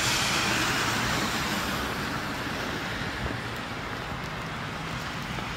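A car passing on a wet, slushy road: tyre hiss loudest at the start, then slowly fading away.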